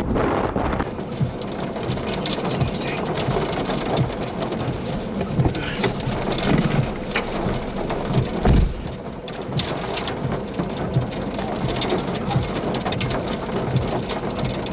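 Large hailstones pelting down, a dense steady clatter of impacts, with a heavier thump about eight and a half seconds in.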